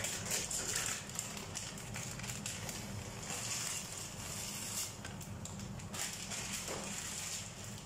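Wooden spoon stirring and scraping thick tomato sauce in an aluminium pot, with irregular small clicks over a steady low hum.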